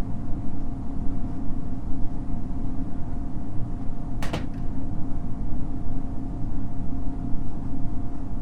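A steady low rumble with a faint constant hum above it, and one sharp click about four seconds in.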